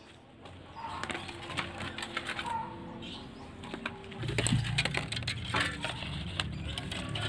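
Birds chirping outdoors, with scattered clicks and rustles from dry bamboo stems and roots being handled. A low hum joins in about four seconds in.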